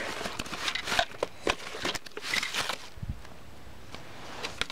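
Packaging and paper being handled: scattered rustles and small clicks, with a soft thump about three seconds in.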